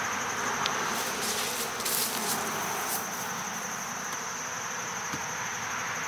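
Honeybees from a queenless colony buzzing around a frame and open hive boxes: a steady, even hum, with a steady high-pitched tone above it and a few faint clicks.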